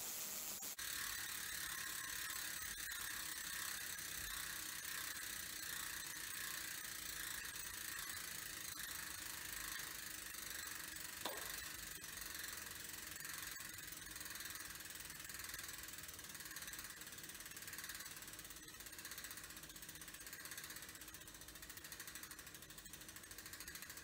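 A road bike's rear wheel freewheeling on a workstand, its freehub pawls clicking in a fast continuous ticking that slows and thins out near the end as the wheel coasts down. One sharper click stands out about eleven seconds in.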